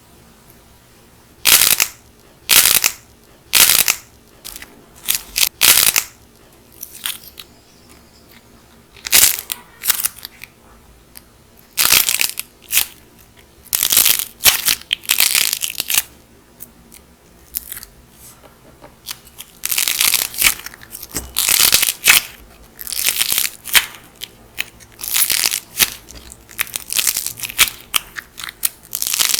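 Dried clay cracking and crumbling under pressure: short bursts of crisp crackling, separate at first and coming almost without a break in the last third.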